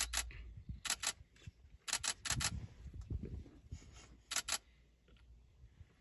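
Camera shutter firing in four quick bursts of two to four clicks each, over a low rumble.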